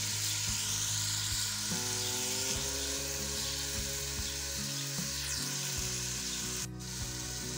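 Onion and green-chilli masala frying in oil in a metal pot: a steady sizzle, with a steel ladle stirring and now and then knocking against the pot.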